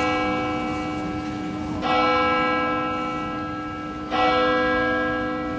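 Church bell tolling slowly, a stroke about every two seconds, each ringing on and fading away.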